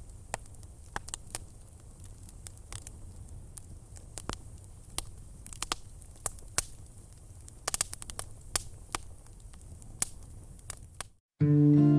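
Crackling noise: scattered, irregular clicks over a low rumble and a faint high hiss, stopping abruptly about eleven seconds in, just before guitar music starts.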